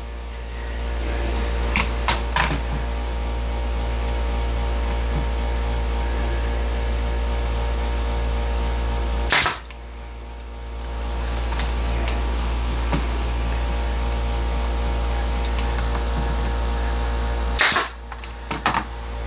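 An 18-gauge brad nailer firing two loud, sharp shots about eight seconds apart as brads go into the wooden slats, with a few lighter clicks and taps of handling. A steady machine hum runs underneath.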